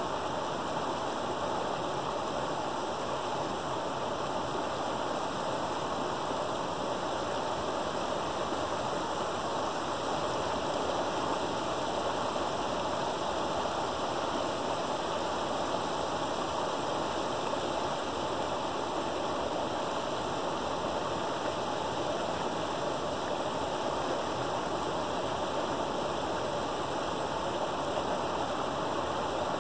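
Creek water rushing steadily through a gap in a beaver dam, a small waterfall pouring into the stream below.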